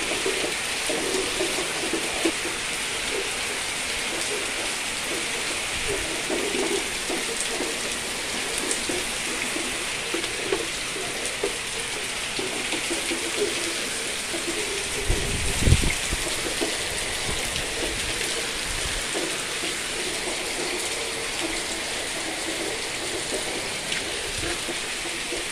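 Heavy rain pouring down steadily in a tropical downpour, with a brief low thud about fifteen seconds in.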